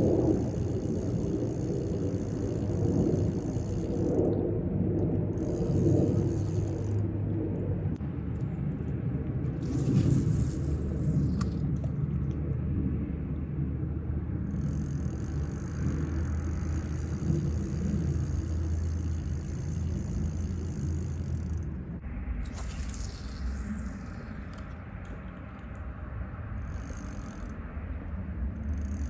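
Vehicle on the move: a steady low rumble with some rattling and scraping.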